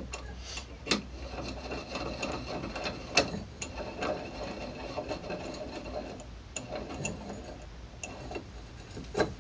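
Metal handling at a bench vise: light rattling and scraping of steel square tubing set against a cracked cast C-clamp in the vise, with a few sharp metal clinks and knocks.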